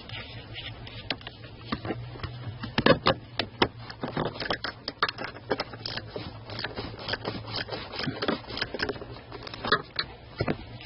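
Irregular clicks, taps and light scrapes of hand tools on metal shifter-linkage parts, coming thickest in the middle, over a faint steady low hum.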